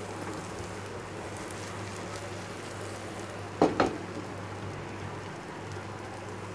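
Beaten egg with chopped onion, tomato and green chilli frying in an oiled pan, a steady sizzle over a low steady hum. A brief knock a little past halfway.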